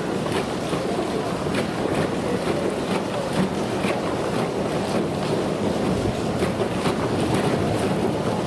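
Pool water sloshing and splashing as a polar bear pushes a floating plastic toy about at the pool's edge. Frequent small splashes and knocks sound over a steady rush of water.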